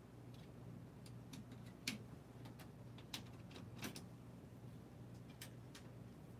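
Faint scattered metal clicks and taps from hands fitting parts into the sheet-metal frame of an Epson L1800 printer, the sharpest about two seconds in and again near three and four seconds in. A steady low hum runs underneath.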